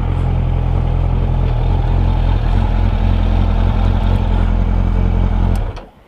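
Suzuki Bandit motorcycle's inline-four engine running at steady revs, heard from the rider's position. The sound cuts off sharply near the end.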